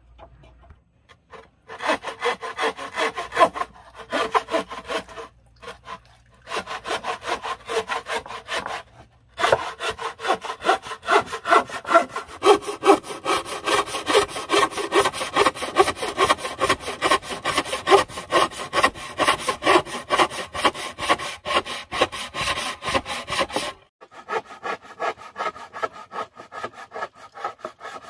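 Wooden frame saw cutting along the length of a wooden plank in steady back-and-forth strokes, in several runs with short pauses. After a break near the end the strokes go on more quietly.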